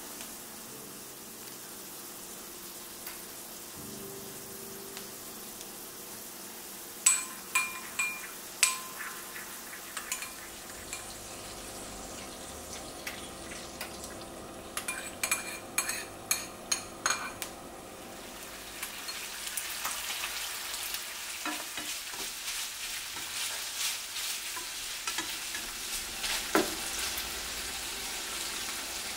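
Salmon fillets and then bacon frying in nonstick pans, with a steady sizzle. There are two short runs of ringing clinks, a utensil against a dish, about a quarter of the way in and again near the middle. The sizzle grows louder and more crackly in the last third.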